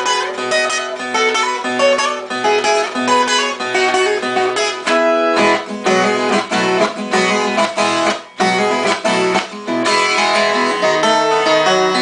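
Background music led by acoustic guitar, plucked and strummed, with a brief break a little past the middle.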